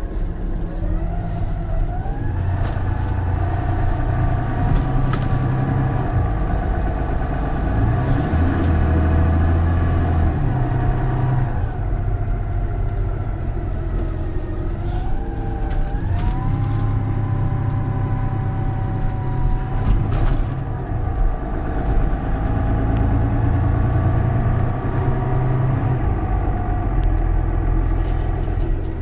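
Mercedes-Benz Citaro Facelift city bus heard from on board: engine and automatic gearbox accelerating with a rising whine about a second in, easing off around eleven seconds, then pulling up again around fifteen seconds and holding steady.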